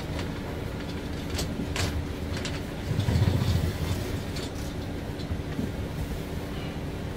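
Vinyl shower curtain rustling and crinkling as it is fed down the slot of a shower door frame, with a few short sharper rustles in the first few seconds and a low rumble of handling about three seconds in, over a steady hum.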